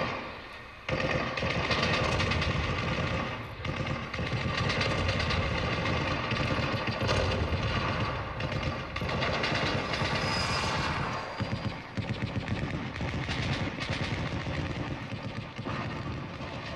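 Rapid, continuous mechanical rattling with a steady hum beneath it. It drops away just after the start and cuts back in sharply about a second in.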